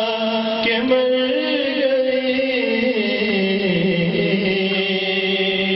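A solo male voice singing an Urdu naat in long, drawn-out held notes, the melody moving slowly from one sustained pitch to the next.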